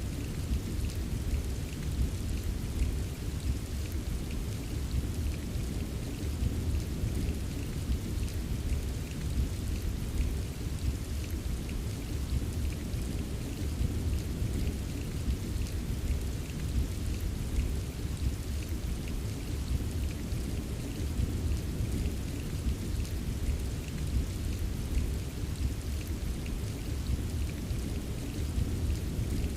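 Steady rain with a deep low rumble under it and the light tapping of drops, unbroken and even throughout.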